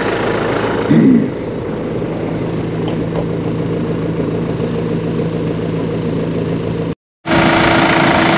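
JCB backhoe loader's diesel engine idling steadily. The sound drops out for a moment near the end and comes back louder.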